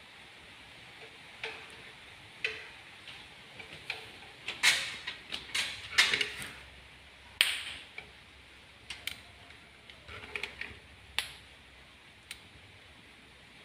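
Hand caulking gun clicking and clacking as its trigger is squeezed again and again to push sealant from a tube along an aluminium window frame. The clicks come irregularly, with a few louder ones near the middle.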